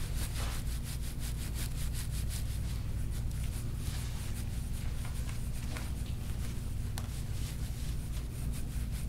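A gua sha scraping tool rubbing over oiled skin on a person's upper back in quick, repeated short strokes, several a second, over a steady low hum.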